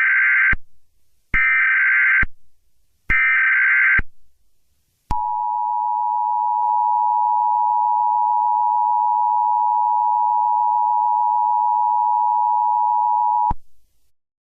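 Emergency Alert System broadcast opening: three short bursts of SAME header data tones, then the steady two-tone EAS attention signal held for about eight seconds before it cuts off.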